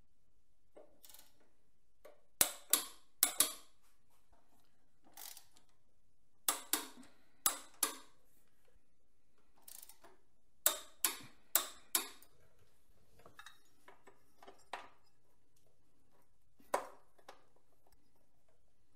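Sharp clicks and knocks of hard objects being handled, about a dozen in all, coming in quick clusters of four with quiet gaps between.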